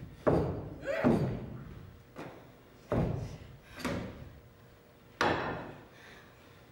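A string of about six sharp knocks and thumps, roughly a second apart, each with a short echo. These come from a staged tussle at a wooden dining table: dishes and cutlery set down hard, and hands and chairs striking the table.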